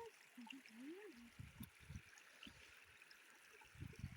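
Faint steady rush of a shallow creek, with a short hummed voice sound about a second in and a few soft handling bumps.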